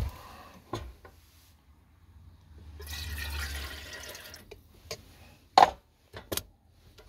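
Water poured from a plastic bottle into a collapsible silicone kettle, a splashing fill lasting about two seconds, followed by a few sharp knocks of handling near the end.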